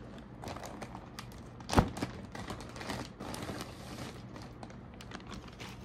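Clear plastic packaging bag crinkling and rustling in the hands as a synthetic wig is pulled out of it, with many small irregular clicks and one sharp knock about two seconds in.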